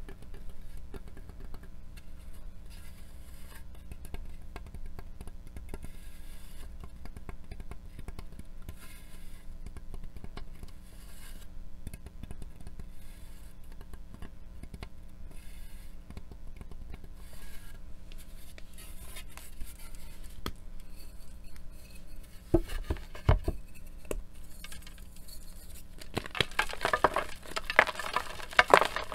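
Fingernails tapping and scratching across the hard surface of reformed gym-chalk blocks, a fast run of light ticks. About 22 seconds in a few heavy thumps as the chalk breaks, then in the last few seconds loud crunching and crumbling as soft, powdery chunks of chalk are squeezed in the hands.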